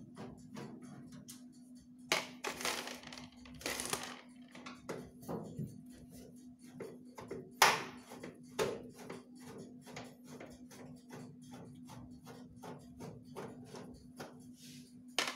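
Mechanical wind-up timer of a microwave oven ticking about four times a second over a steady hum, with a few louder knocks and rattles, the sharpest about halfway through.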